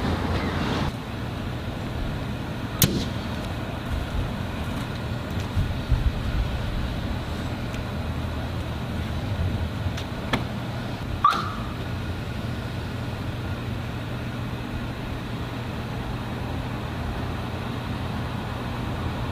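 Steady hum of an idling vehicle engine, with a few sharp clicks and a brief high chirp about eleven seconds in.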